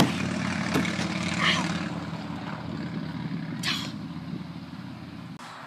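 Steady drone of a distant engine, slowly fading, then cutting off near the end, with a few faint knocks over it.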